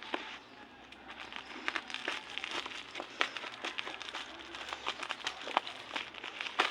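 Packaging crinkling and crackling as a parcel of books is handled and unwrapped: irregular rustles with scattered sharp crackles.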